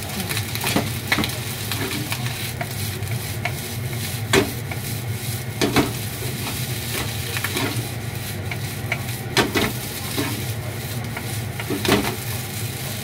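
Kimchi fried rice sizzling in a nonstick frying pan while a wooden spatula stirs and scrapes it, with several sharp knocks of the spatula against the pan.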